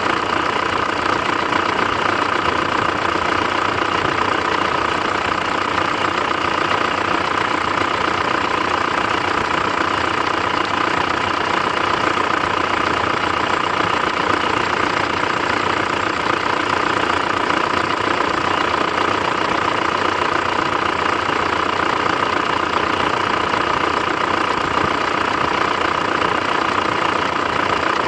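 Mitsubishi 4M41 3.2-litre four-cylinder turbodiesel idling steadily, with a knock in the engine.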